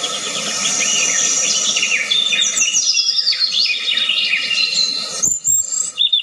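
Several birds chirping, with many quick falling notes overlapping one another, over a steady high-pitched buzz. The sound drops out briefly about five seconds in.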